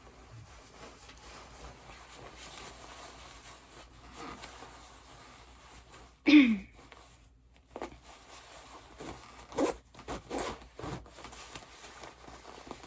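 A thick winter jacket rustling as it is put on, with one loud zip about six seconds in and several shorter zips and rustles after it.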